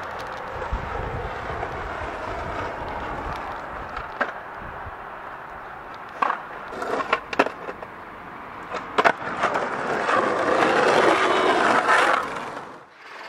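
Skateboard wheels rolling on rough asphalt, then several sharp wooden clacks about six to seven seconds in as the board pops and hits the ground, with another knock near nine seconds. Rolling noise grows louder from about ten seconds and cuts off suddenly near the end.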